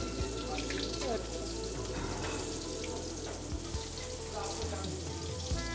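Battered bhetki fish slices deep-frying in hot oil in a wok, giving a steady sizzle, under background instrumental music with long held notes.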